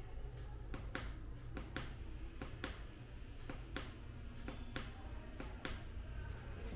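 An irregular run of sharp clicks and taps, roughly two to three a second, over a steady low hum.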